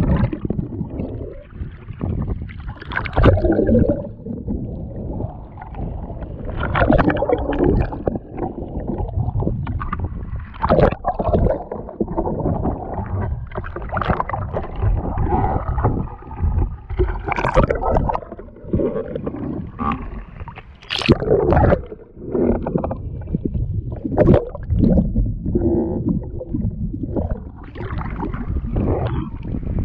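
Kayak paddling: water splashing and gurgling around the hull of an Oru Haven tandem folding kayak, heard close up from a camera at the waterline. It comes in uneven surges every second or two with the paddle strokes.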